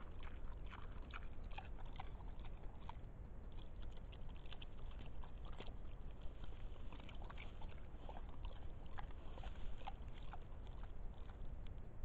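Wild boar rooting and feeding on the ground: faint, irregular crunching and clicking from its snout and jaws, heard through a trail camera's microphone over a steady low hiss.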